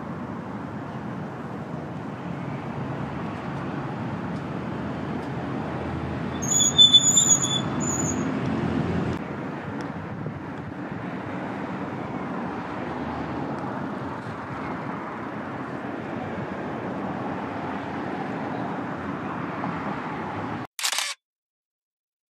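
Steady outdoor city ambience with a rumble of road traffic. A brief high squeal about seven seconds in, the loudest moment. Near the end the sound cuts out abruptly to silence, and a single short sharp burst of noise follows.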